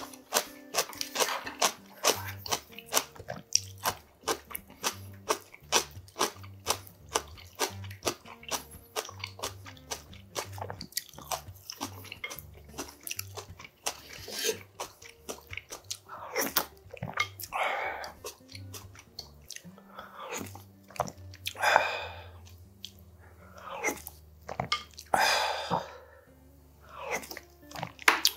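Close-miked eating: crunchy chewing and wet mouth clicks, several a second. In the second half there are longer slurps of seafood udon broth from a wooden spoon.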